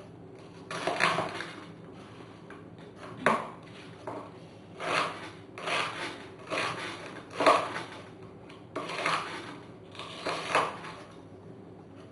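Kitchen knife slicing through an onion onto a wooden cutting board: about ten separate cuts, each a short, sharp stroke, irregularly spaced, roughly one a second, stopping shortly before the end.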